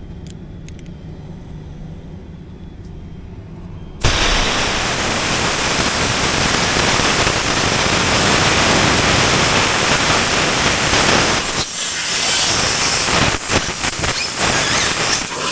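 Compressed air hissing out of the truck's air line at the fitting under the air-ride seat, released by squeezing the push-to-connect fitting so the line bleeds down. The loud hiss comes on suddenly about four seconds in and keeps going, with a brief dip about two-thirds of the way through.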